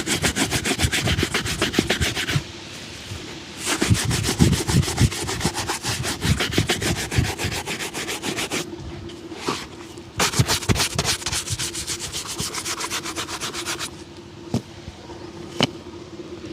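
A shoe being brushed with quick back-and-forth strokes, several a second, in three bouts with short pauses between. A couple of light taps come near the end.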